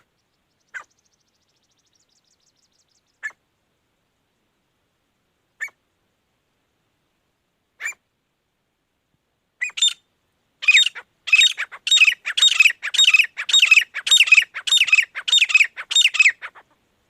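Grey francolin calling: a few single sharp notes spaced a couple of seconds apart, then from about ten seconds in a fast run of loud repeated calls, about two a second, that stops shortly before the end.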